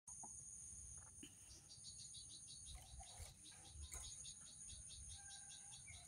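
Faint outdoor insect song: a steady high-pitched trill with a soft pulsing about four times a second, and a few faint chirps.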